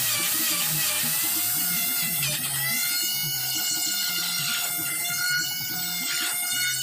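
Large electric plunge router whining as its bit cuts a mortise slot into teak, its pitch wavering under load at first and then holding steadier.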